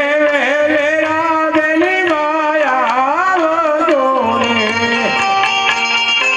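Live Indian folk music: an ornamented melody with wavering, sliding pitch over a hand drum. About four seconds in, the melody gives way to steady, held string notes.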